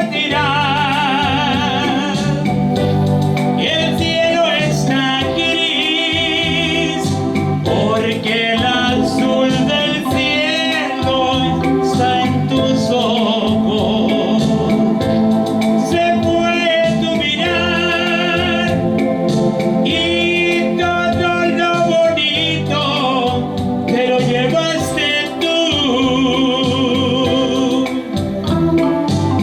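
A band playing a romantic song with no sung words: a lead melody with a wide vibrato over sustained keyboard chords, bass and a steady beat.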